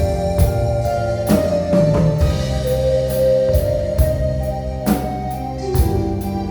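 Live band music without vocals: a drum kit keeping a steady beat under held keyboard chords and a sustained melody line.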